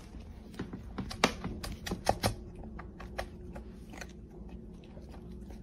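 Cat eating dry kibble from a plastic bowl: irregular crunching and clicking of the kibble, with a few sharper clicks between about one and two and a half seconds in.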